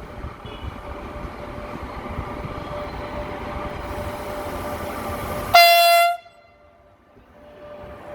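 Electric locomotive and train running with a growing rumble and a steady whine, then one short, loud horn blast a little past halfway, after which the sound falls away sharply.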